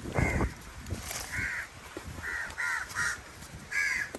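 Crows cawing: about six short calls spread over four seconds.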